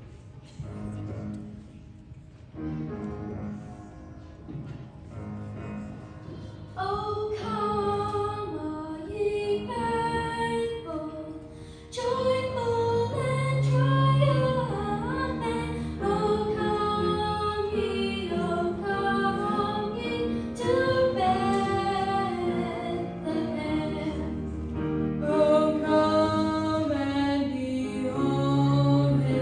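Young girl's solo voice singing a song with instrumental accompaniment in a school choir performance. The accompaniment plays alone at first, the singing comes in about seven seconds in and grows louder about twelve seconds in.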